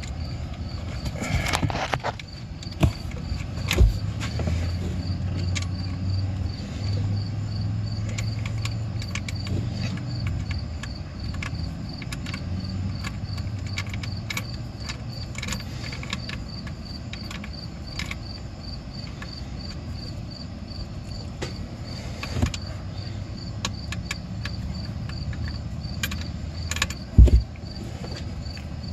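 Scattered clicks and knocks of hands and tools working on the snowmobile's engine parts, with one sharp knock near the end, over a cricket chirping steadily at about three chirps a second. A low hum runs through roughly the first half.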